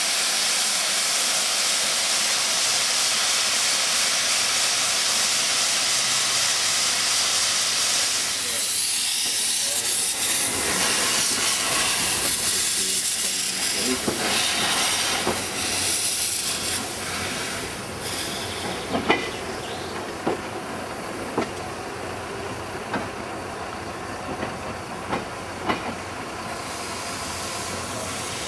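Narrow-gauge steam locomotive venting steam with a loud, steady hiss. The hiss thins out after about 17 seconds, and about six sharp metallic knocks come in the second half.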